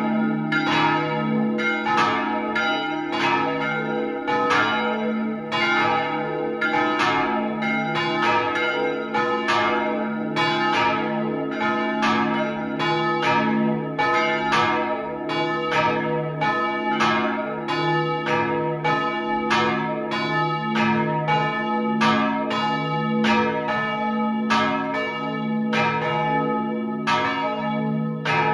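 Three swinging church bells pealing together, heard close up inside the bell chamber: a great bell cast in 1489 tuned to D-sharp, a middle bell recast in 1900 tuned to G-sharp, and an early-13th-century small bell tuned to F. Their clapper strokes overlap at about three every two seconds over a steady ringing hum.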